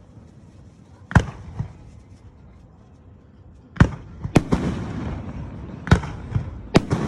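Fireworks going off: a single loud bang about a second in, then a run of bangs from about four seconds on, with crackling between them.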